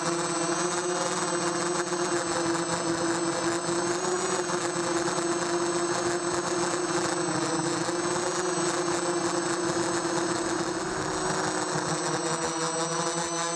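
Four 2000 kV brushless motors and 5030 propellers of a micro quadcopter whining in flight, picked up by the GoPro on its frame. The pitch wavers slightly with throttle and starts to rise at the very end.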